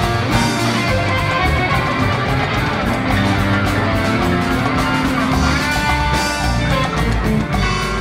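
Live rock band jamming: electric guitar playing lead over a steady drum beat and hand percussion.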